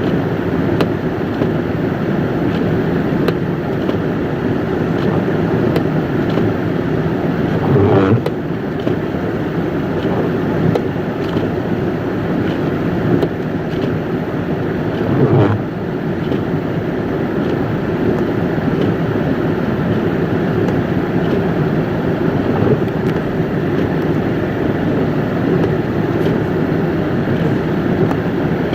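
A vehicle driving through a blizzard: steady engine, tyre and wind noise, with two brief louder swells about 8 and 15 seconds in.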